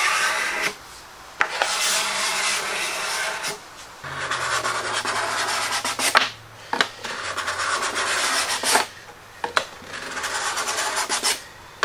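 Steel card scraper drawn across a pine board in five long strokes, each about two seconds with brief pauses between. It is scraping off glue squeeze-out to level the box's base.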